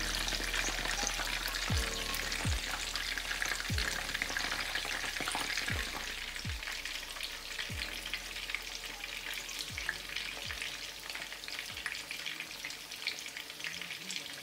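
Salmon fillet frying skin-side down in a hot pan, a steady sizzle and crackle of oil as the skin crisps.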